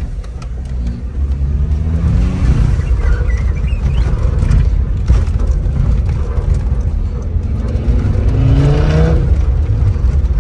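Land Rover Discovery 2 engine pulling under acceleration, heard from inside the cabin over a steady low rumble of the drive on a gravel track. Its pitch rises twice, about two seconds in and again about eight seconds in.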